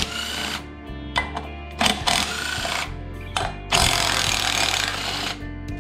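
Makita 18V cordless impact driver running in several short bursts as it undoes bolts on an engine, the longest run lasting over a second near the end. Background music plays underneath.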